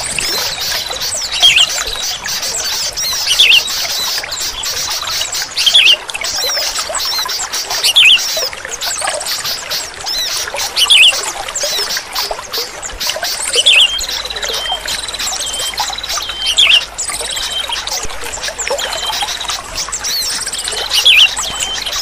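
Sooty-headed bulbuls (kutilang) singing: loud, bubbly song phrases about every two to three seconds over steady high-pitched chirping from more birds.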